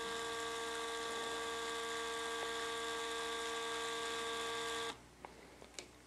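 Rollease MTDCBRF25 lithium-ion tubular roller-shade motor running, a steady whine made of several held tones, cutting off sharply about five seconds in. A couple of faint clicks follow.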